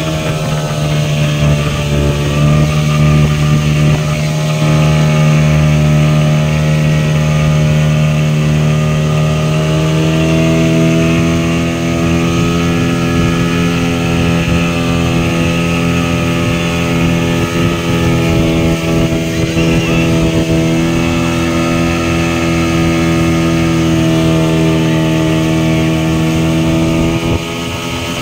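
Towing speedboat's engine running steadily at speed over a constant rushing hiss of wake and wind, its pitch shifting slightly about two seconds in and again about ten seconds in.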